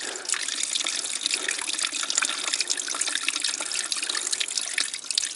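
A thin stream of water running and splashing steadily into a plastic water bottle held under it as the bottle fills.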